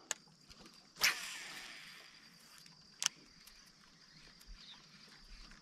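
Quiet handling sounds on a fishing boat: a faint click, a brief rushing swish about a second in that fades over about a second, then a sharp click about three seconds in.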